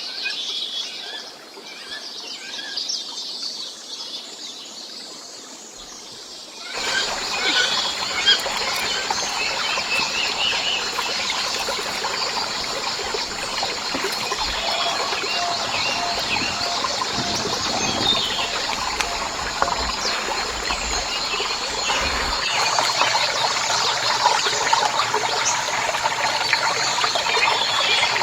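Birds chirping in short repeated calls; about seven seconds in the sound cuts abruptly to a louder, steady rushing noise with bird calls over it.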